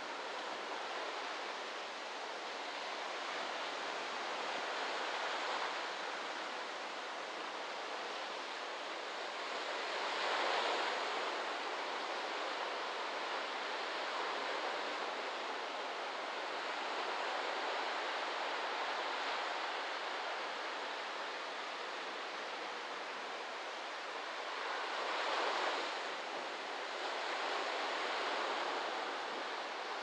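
Waves breaking on a beach: a steady wash of surf that swells louder as individual waves break, most strongly about ten seconds in and again around twenty-five seconds.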